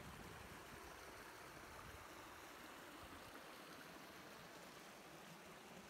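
Faint, steady rush of a river flowing.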